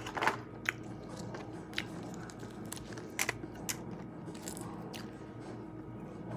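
Someone eating: several short crunches and small clicks, scattered irregularly, over a faint steady hum.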